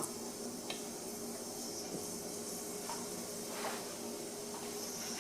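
Steam hissing steadily from a pressure cooker around its counterweight, the sign that the cooker is still under pressure, with a few faint clicks.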